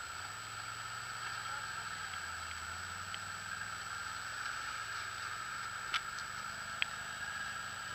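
Quad bike (ATV) engine running steadily some way off, over the even rush of a small forest stream. Two light clicks near the end.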